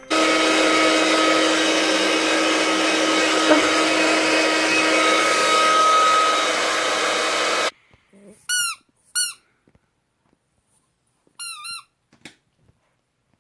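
An electric appliance motor running with a steady whir and hum, cutting off abruptly a little past halfway. It is followed by a few short, high squeaks.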